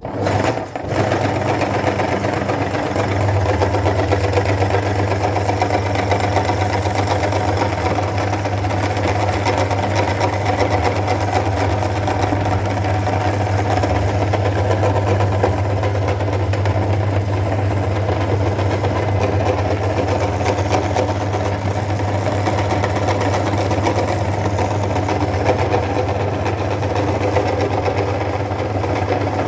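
Electric meat grinder switched on and running steadily with a low motor hum.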